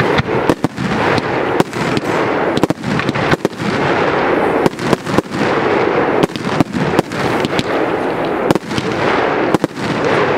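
Aerial firework shells bursting one after another in a fireworks display: many sharp bangs over a dense, continuous crackle.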